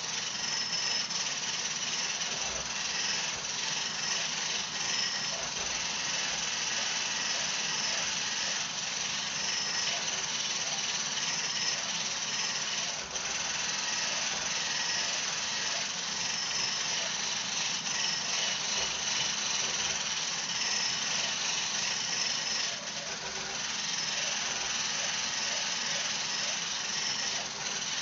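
Hand-held immersion blender running steadily in a glass, whipping heavy cream with coffee toward stiff peaks; a high motor whir that dips briefly about three-quarters of the way through.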